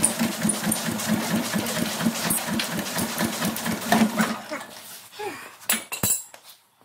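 Single-cylinder Hatz diesel being hand-cranked for a cold start: a rapid, even beat as the engine is spun over. It slows and dies away about four seconds in, followed by a few sharp knocks.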